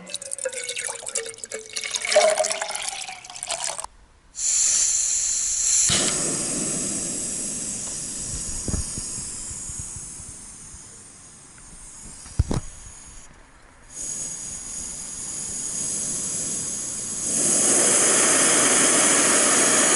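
Water poured into a metal cooking cup, with clinks, then the Jetboil Flash's canister-gas burner hissing steadily. A single click comes partway through, and the hiss jumps louder a few seconds before the end as the burner is turned up high.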